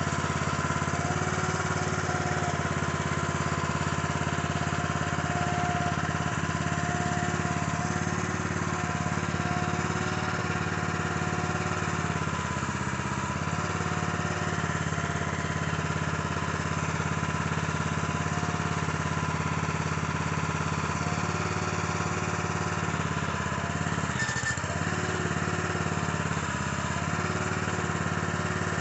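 Small gasoline engine of a Harbor Freight trencher/backhoe running steadily, with a higher whine that comes and goes every few seconds as the hydraulics are worked to purge air from the lines.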